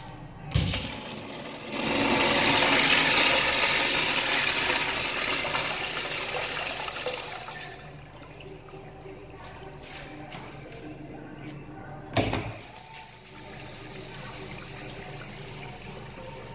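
Urinal flush valve worked by its handle: a clunk as it is pressed, then water rushing into the bowl for about six seconds, fading off. Another sharp knock comes about twelve seconds in.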